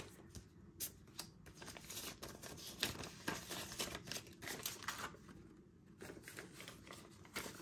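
Paper dollar bills rustling and flicking as they are sorted by hand and laid onto stacks: soft, irregular crackles and taps.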